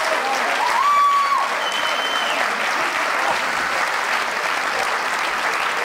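Crowd cheering and applauding, with two short held whistles about a second in.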